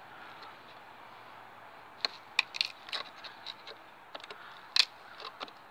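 Pliers tearing and peeling old, water-stained sealing strip away from a motorhome's corner joint: quiet at first, then a string of sharp cracks and snaps from about two seconds in, the loudest near the end.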